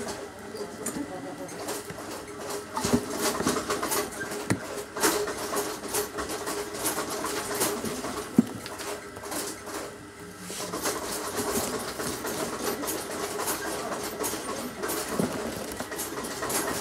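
Hands rummaging through a leather tote bag: irregular rustling, creaking and small knocks as the items inside are shifted about. A faint steady hum runs underneath.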